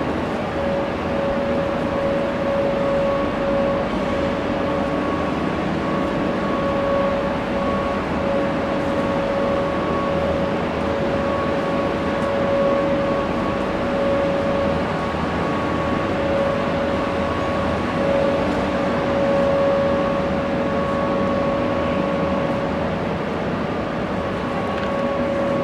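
Steady hum of a large train-station hall: an even background rush with a constant whining tone and a fainter one above it, and no distinct events.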